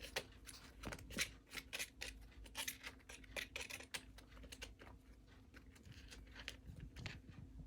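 Kittens' claws scrabbling and scratching during play: a rapid, irregular run of small scratchy clicks, thick for the first few seconds and then sparser.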